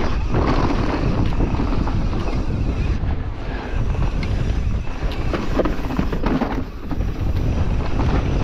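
Wind rushing over the microphone of a camera riding on a mountain bike descending a dirt trail, with tyre noise and scattered knocks and rattles from the bike over bumps.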